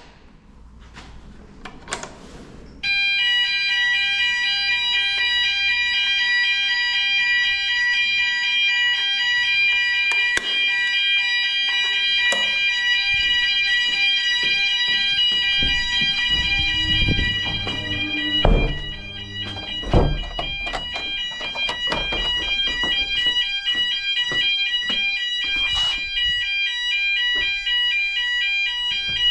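Building fire alarm set off for its weekly test: it switches on suddenly about three seconds in and sounds continuously, a loud, piercing, multi-tone ring. A few heavy knocks come around the middle.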